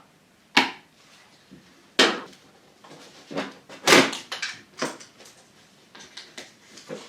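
Sharp plastic clicks and clacks from push-in trim poppets being popped out and the plastic scuttle covers being handled. Two loud single knocks in the first two seconds, a quick cluster of knocks and rattles around the middle, then lighter rattling.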